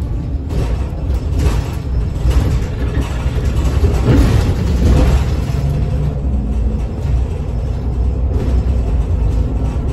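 Mercedes-Benz Citaro O530 city bus heard from inside its passenger cabin while driving: a steady low engine and road drone, with the engine note shifting in pitch a few times as the bus pulls along.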